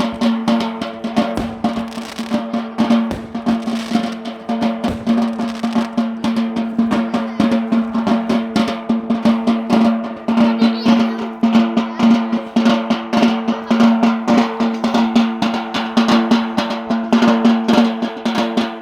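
Drumming for a Yemeni bara' dance: rapid, dense drum strikes over a steady droning note held throughout.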